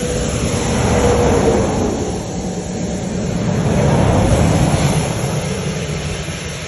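Highway traffic passing close at speed: a continuous tyre-and-engine roar, with two vehicles rushing past, about a second in and again about four seconds in.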